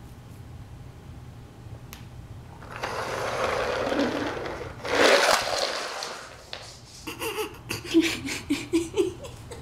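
A rushing noise that builds for a couple of seconds, then a loud burst about five seconds in as the plastic toy castle is knocked over. A quick run of short laughs follows near the end.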